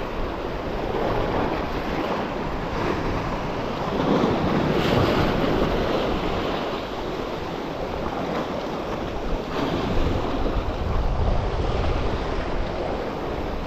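Small sea waves washing against shoreline rocks, swelling and easing in surges, with wind buffeting the microphone.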